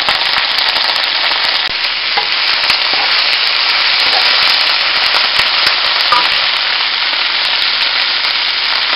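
Shredded cabbage frying in hot oil in a frying pan with a steady sizzle and scattered crackles, as it is stirred and turned with a wooden spatula.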